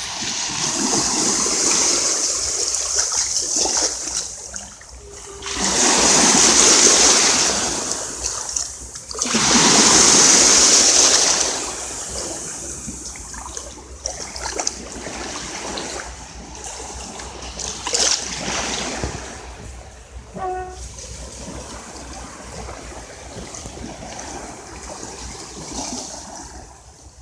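Sea waves breaking and washing on the shore, coming in rushing surges; the two loudest break about six and ten seconds in, then the wash settles to a lower, steadier hiss.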